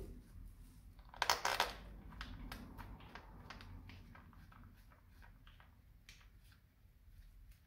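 Hand tool working the bolts of a motorcycle engine side cover: a quick run of metal clicks about a second in, then scattered single clicks as the bolts are turned.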